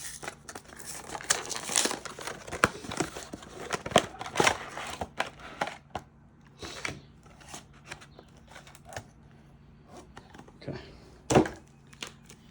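Plastic foil booster-pack wrappers crinkling and tearing as a trading-card mini box is opened, dense for the first six seconds and then sparser rustling.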